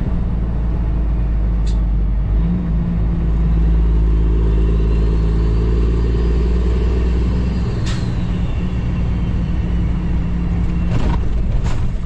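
Cummins ISX diesel in a Kenworth W900L running under way, heard from inside the cab: a steady low rumble whose pitch steps up a little about two and a half seconds in. A faint high whine rises and falls through the middle, and a few sharp clicks come near the end.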